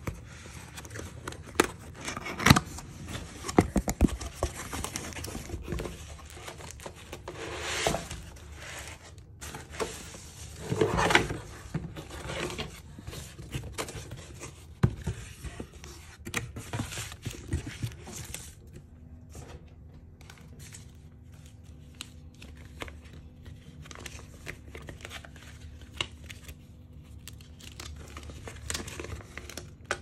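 A cardboard box being opened and unpacked by hand: irregular tearing, scraping and clicking of cardboard flaps and tape, with crinkling of plastic and paper packaging. The handling is busiest in the first half, with a longer tearing rustle about eleven seconds in, then turns quieter and sparser.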